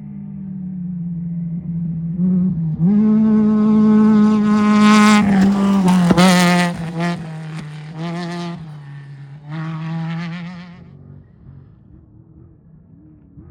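Off-road race vehicle's engine approaching and passing at high revs, loudest four to seven seconds in, where the pitch drops. It then pulls away with two shorter surges of throttle and fades out.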